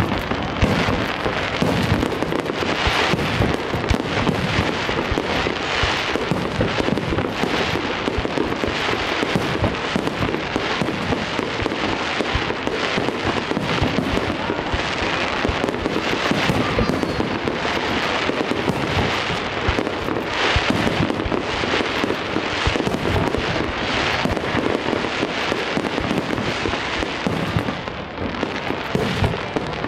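Fireworks display: aerial shells bursting one after another with many bangs and pops in quick succession and no pause.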